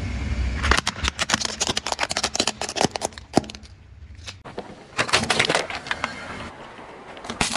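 A plastic toy fire truck cracking and snapping apart under a car tyre: a low tyre rumble at first, then a long run of sharp cracks and crunches. After a short lull, a second burst of crunching about five seconds in.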